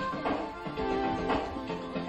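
Music with held notes and a steady beat.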